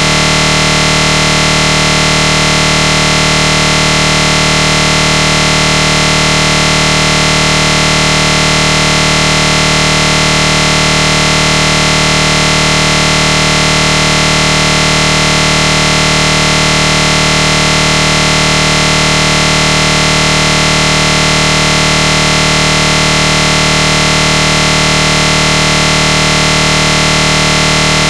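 A loud, unchanging buzzing drone made of many fixed tones, with no variation or break at all.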